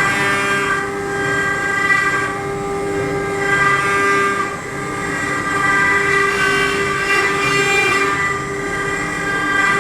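CNC machine's stepper motors whining as the axes move, several steady tones whose pitch shifts in steps every second or so as the motion changes speed.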